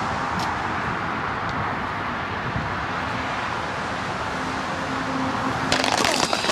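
Steady rushing outdoor noise, with a faint low hum in the middle, then a dense crackling clatter starting near the end.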